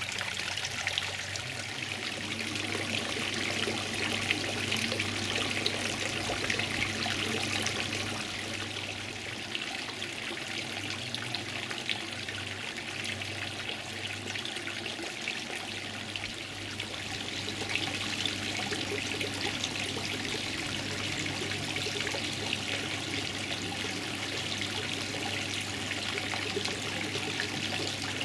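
Water trickling steadily, with a steady low hum beneath it; the rushing hiss swells and eases gently over several seconds.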